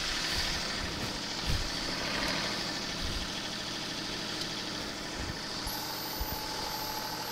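John Deere compact tractor's diesel engine running steadily at idle, with a few faint knocks. About two-thirds of the way in, a thin steady whine joins as the front loader arms rise.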